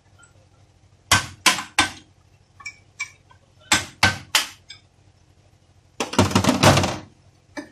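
Hammer blows on a long steel punch set into a steering rack housing held in a bench vise: three sharp strikes, a couple of light taps, three more strikes, then about a second of rapid clattering near the end.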